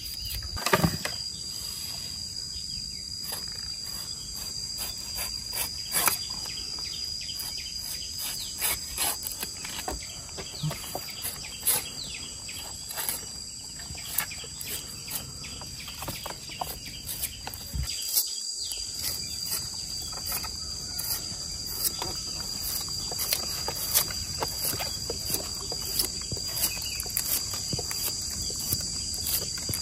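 Insects droning steadily at a high pitch, with irregular sharp clicks and cracks throughout from a knife cutting and peeling the tough husks off fresh bamboo shoots.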